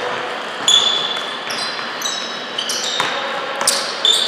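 Basketball players' sneakers squeaking on the court in short, high squeals, with a basketball bouncing a few times.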